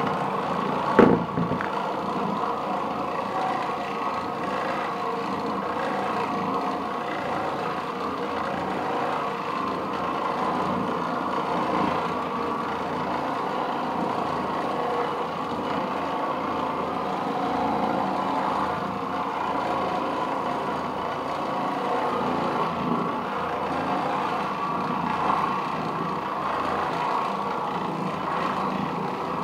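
Oreck Orbiter orbital floor machine running steadily as its bonnet pad works the carpet: a constant motor hum made of several steady tones. A sharp knock about a second in stands out above it.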